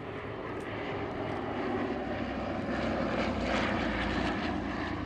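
Twin radial piston engines and propellers of a Douglas C-47 Dakota droning in a low display flypast. The sound grows louder to a peak about three and a half seconds in, then begins to ease.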